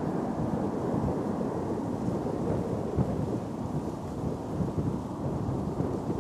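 Deep, steady rumble of an Airbus A330-200's jet engines after its low pass on approach, the noise sitting mostly in the low range with no clear tone.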